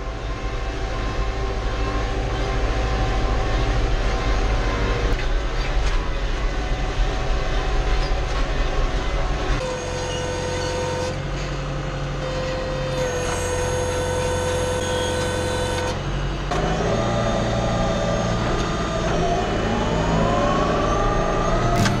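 Tractor engine running steadily under load while driving a disc mower, heard from inside the cab; the tone shifts in steps a couple of times, and the engine pitch rises near the end.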